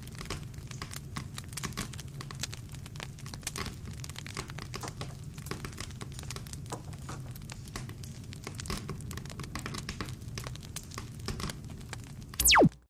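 Logo-outro sound effects: a steady crackle of many small clicks over a low hum, ending in a brief, loud sweep that falls steeply in pitch and cuts off sharply.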